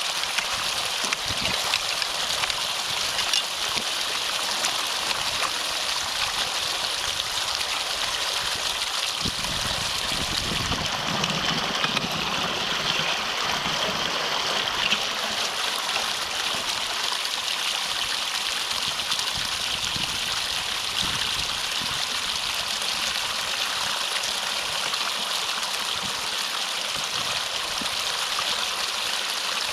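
Water flowing and gurgling through a drainage-ditch culvert clogged by a beaver dam, a steady rush of flow. A few dull low thuds come in the middle.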